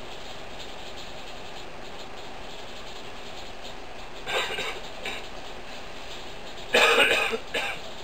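A person coughing: a short cough about halfway through, then a louder fit of a few coughs near the end, over a steady faint hiss.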